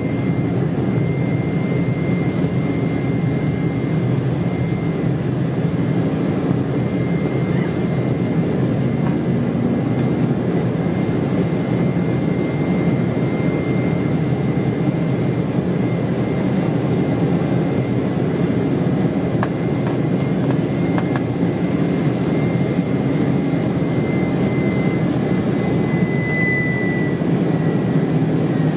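Cabin noise of an Embraer E190 airliner in flight, heard from inside: its GE CF34 turbofan engines and the airflow make a steady low rumble, with a thin steady whine above it.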